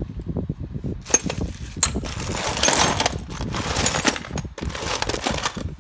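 Loose steel nuts, bolts and metal fittings clattering and clinking against each other as a hand rummages through a toolbox drawer: a busy, uneven run of many small clicks and knocks.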